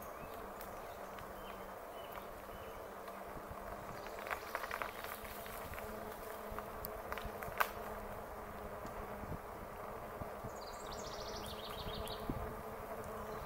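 Electric bike motor humming steadily with a buzzing whine, with scattered clicks and rattles from the ride and a brief high chirp near the end.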